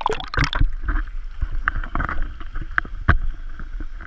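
Splashing as an action camera goes into swimming-pool water, then muffled underwater sound with a low rumble and scattered short clicks and knocks.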